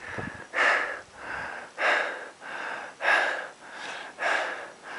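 A climber's heavy, laboured breathing at about 7100 m: a loud gasping breath roughly every second and a quarter, with softer breaths in between, the panting of hard effort in thin high-altitude air.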